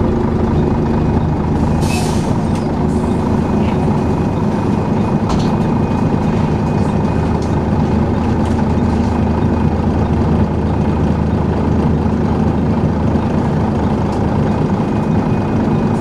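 Volvo B10BLE bus's six-cylinder diesel engine idling steadily, heard from inside the saloon, with a short hiss of compressed air about two seconds in.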